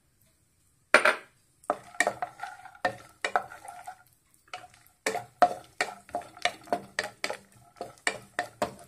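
Wooden spatula stirring cashew pieces in hot ghee in a ceramic-coated frying pan. There is a loud knock about a second in, then a run of quick knocks and scrapes of wood against the pan, about three a second in the second half.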